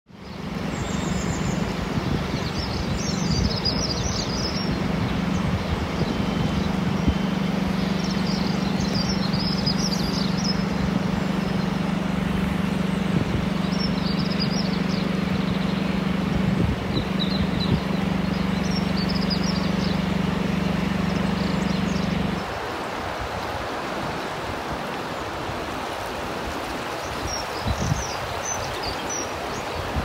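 Outdoor ambience of the swollen, fast-flowing River Severn in flood: a steady rush of water and air, with small birds chirping in short bursts every few seconds. Over it runs a steady low motor hum that cuts off sharply about three-quarters of the way through.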